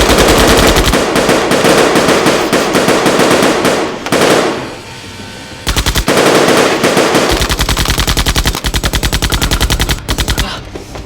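Two long bursts of rapid automatic fire, like a machine gun. The first runs about four and a half seconds. The second starts about a second later and runs about four more.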